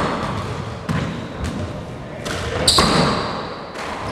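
Four-wall handball rally: the small rubber ball is struck by gloved hands and smacks off the walls and hardwood floor in sharp hits about a second apart, with sneakers squeaking on the court around the middle.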